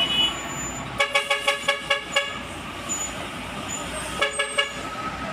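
A vehicle horn tooted in rapid short blasts, a quick run of about seven and then about four more near the end, over the steady noise of heavy-vehicle engines and traffic.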